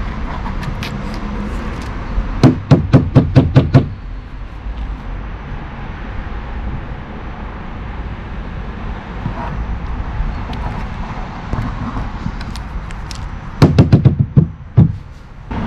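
Two bursts of rapid hand tapping, about five taps a second, knocking fine gold concentrate into place, over a steady rushing background.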